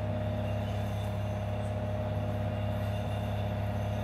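A steady low mechanical hum with a thin constant whine in it, unchanging throughout.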